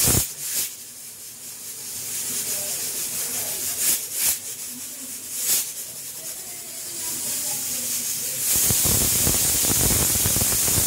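Pressure cooker hissing as steam builds under the weight, with a few sharp clicks, then about eight and a half seconds in its whistle lets go: a loud, steady rush of venting steam, the sign that the cooker has reached pressure.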